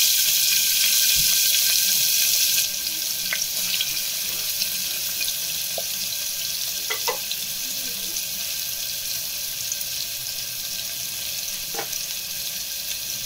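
Chopped onions sizzling in hot oil in a pressure cooker: a loud hiss as they hit the oil, settling after about two and a half seconds to a steadier, quieter sizzle with a few faint pops.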